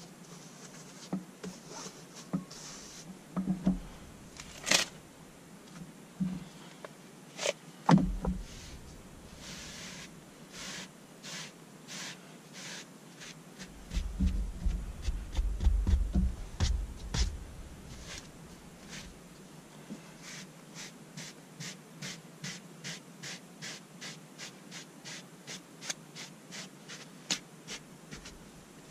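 Handheld pet-hair removal brush scraping in short strokes across fabric seat upholstery to lift embedded dog hair. The strokes are irregular at first, then quick and even, about two a second, in the last third. A low rumble sounds about halfway through.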